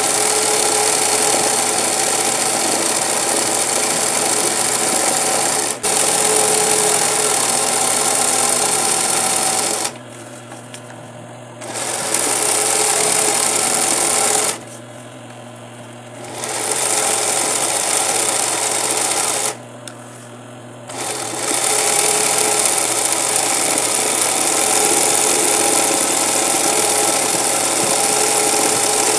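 Industrial zig-zag sewing machine (Singer 20U type) running at speed, stitching a satin-stitch appliqué edge. In the middle it stops three times for a second or two while the fabric is repositioned, leaving only a low motor hum, then starts stitching again.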